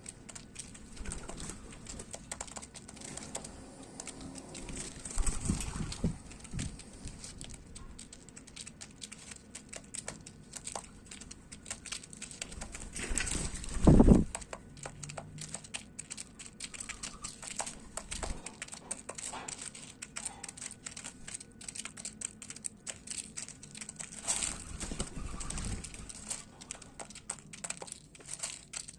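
Birds pecking and picking at seed, a rapid, irregular clicking and crunching, with a few low thumps of wings or landings, the loudest about halfway through.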